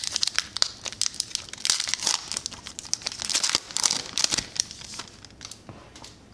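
Plastic baseball-card pack wrapper crinkling as the pack is opened and the cards are slid out: a dense run of sharp crackles that thins out near the end.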